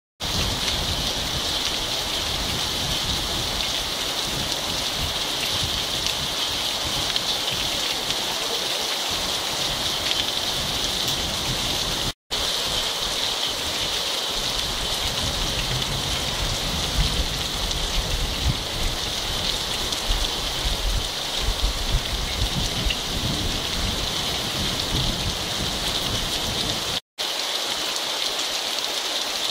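Heavy rain pouring steadily, a dense even hiss of drops falling on the ground, road and trees. The sound cuts out for an instant twice, about twelve seconds in and near the end.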